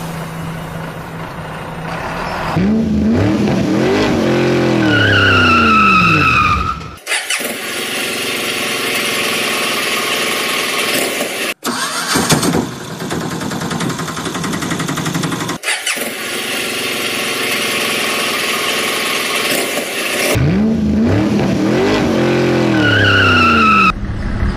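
A vehicle engine sound effect: an engine starting and revving, its pitch rising and falling, then running steadily in stretches that cut off suddenly. The same start-and-rev comes back near the end, as in a looped effect.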